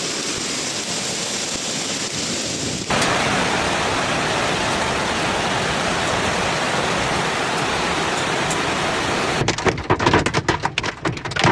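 Heavy storm downpour hissing steadily, jumping abruptly louder about three seconds in. Near the end a rapid, irregular clatter of hard hits comes in over it.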